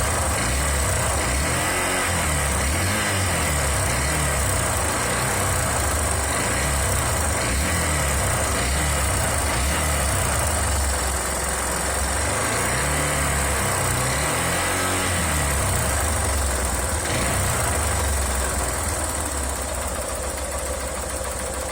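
Honda Titan 150's single-cylinder four-stroke engine revved up and down several times, with a knock that comes in under acceleration: the owner takes it for a knocking piston pin, with the connecting rod probably badly damaged too.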